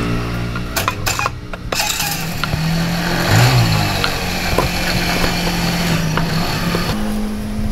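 Light metal clicks and knocks as an aluminium engine side cover is handled and seated onto a Bajaj CT100 motorcycle crankcase. A steady low hum runs underneath, shifting in pitch a little partway through.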